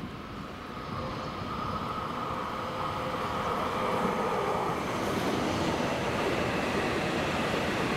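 E7 series Shinkansen train pulling in slowly, its running noise growing steadily louder as it nears. A steady high whine sounds over the first half and then fades under a broad rumble of wheels on rail.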